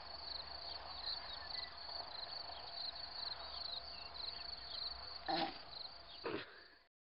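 Crickets chirping steadily in quick, high, repeated chirps. Near the end come two short, sharp, louder sounds about a second apart, and then the sound cuts off suddenly.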